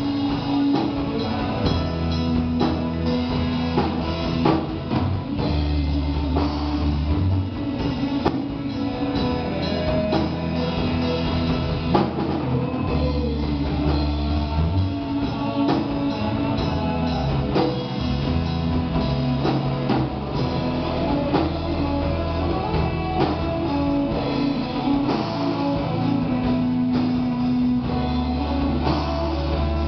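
Rock band playing an instrumental passage: drum kit keeping a steady beat under electric guitar and bass, with long held bass notes.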